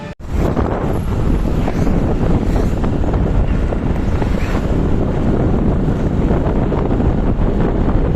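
Wind buffeting the microphone: a loud, steady rushing rumble with no horn or tone in it, starting abruptly just after a brief dropout.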